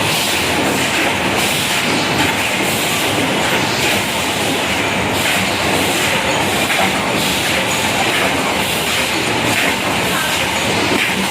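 JBZ-500 paper plate making machine running at production speed, giving a loud, steady mechanical noise.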